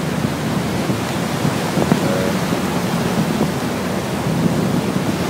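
Steady rush of water churned along the side of a moving passenger ferry, with wind blowing across the microphone.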